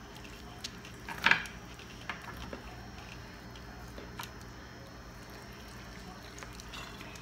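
Raw turkey wing being worked by hand to free the bone: faint wet squishing with a few small ticks, and one sharper knock about a second in.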